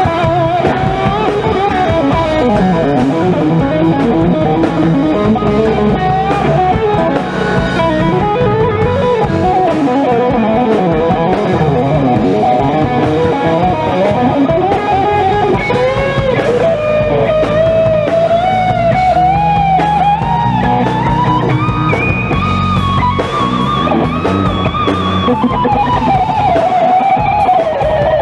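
Live instrumental rock: an electric guitar plays a lead melody full of bends and slides over a drum kit. In the second half the melody climbs steadily to a high, held passage, then falls back near the end.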